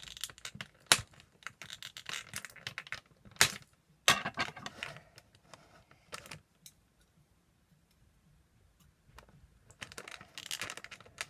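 Plastic toy packaging being worked at by hand to free an action figure: a string of clicks, crackles and rustles, going almost quiet for a couple of seconds past the middle before the rustling starts again.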